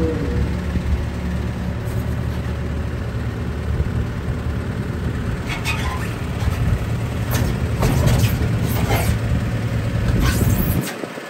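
Steady low engine rumble of a vehicle running close by. From about five and a half seconds in, several sharp knocks and scrapes come as large rubber tractor tires are handled against the trailer deck.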